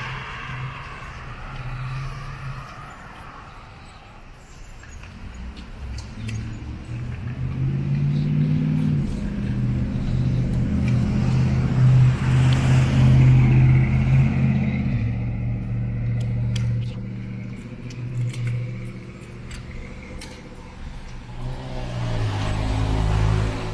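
An engine running, its low hum growing louder toward the middle and its pitch shifting up and down in steps, with scattered light clicks in the second half.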